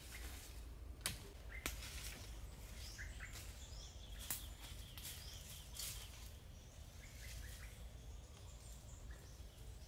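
Faint woodland ambience with scattered short bird chirps. A few sharp clicks or knocks stand out, the first about a second in.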